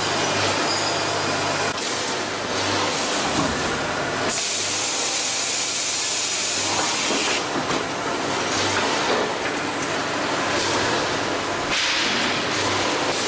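Automatic food packaging machine running: a steady hiss with several louder stretches of rushing, air-like noise, over a low hum that pulses.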